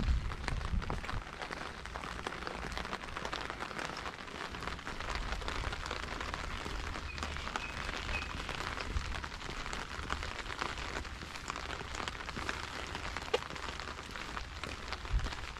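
Steady rain falling: an even hiss scattered with many small drop ticks.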